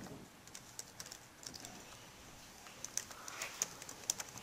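Knife cutting into a baseball's stitched cover: a run of small sharp clicks and snaps, coming more often and louder in the last second and a half.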